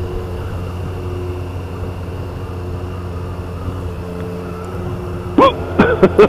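Triumph Street Triple RS three-cylinder engine running steadily at low road speed, heard from a helmet-mounted camera. Near the end come a few short, loud calls that rise and fall in pitch.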